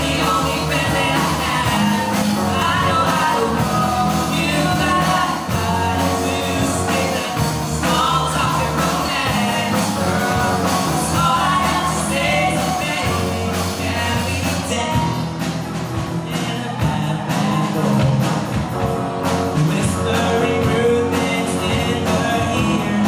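Live rock band playing with a lead singer: vocals over electric guitars, drums and keyboard.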